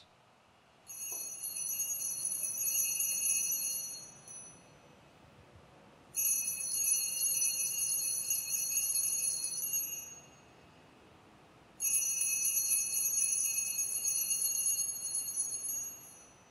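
Altar bells (sanctus bells) shaken three times, each a bright jingling ring of about three to four seconds with short quiet gaps between. They mark the elevation of the consecrated host at Mass.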